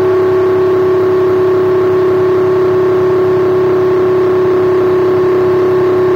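Graco X-Force HD handheld airless sprayer's pump motor running steadily under load while the gun sprays paint, a loud constant whine with one strong steady pitch.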